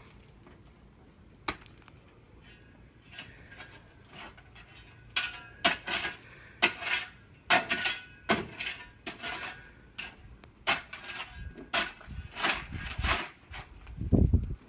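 Irregular clinks and clatters of hard, partly metallic objects knocking together, some with a brief ring. They grow busier about five seconds in, and a few dull low thumps come near the end.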